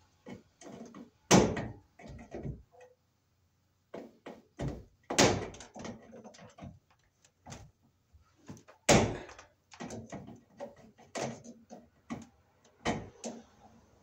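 Irregular metallic knocks, clicks and rattles from the sheet-metal housing of an 8-foot fluorescent light fixture as a stuck nut on the ballast is worked at overhead. Sharper clanks come about a second in, about five seconds in and about nine seconds in.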